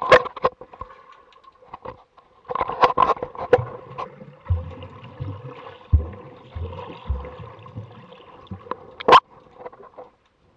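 Underwater sound heard through a camera's waterproof housing: water rushing and bubbling, with sharp clicks and knocks against the housing, and a run of dull low thumps in the middle as the swimmer kicks and stirs up bubbles. A faint steady hum runs underneath.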